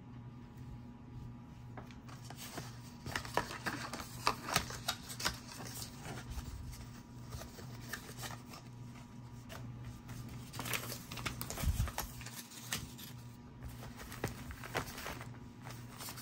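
Plastic zip bags and packets being handled and shuffled, with irregular light rustles and clicks that start about two or three seconds in and go on busily to the end.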